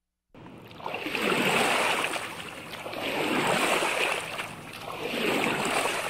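A rushing noise that swells and fades about every two seconds, like surf washing in and out, starting after a moment of silence.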